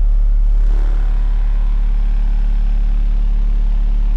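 A car audio system's subwoofers play a loud, steady low bass note, with a rattling noise on top from about a second in.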